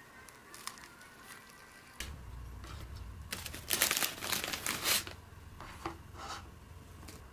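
A burst of crinkling, rustling handling noise, loudest from about three and a half to five seconds in, followed by a few lighter rustles.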